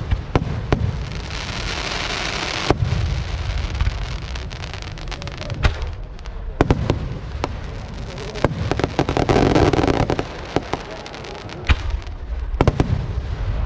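Aerial fireworks shells bursting: a string of sharp bangs throughout, a spell of hissing crackle about two seconds in, and a denser rush of crackling around nine to ten seconds in.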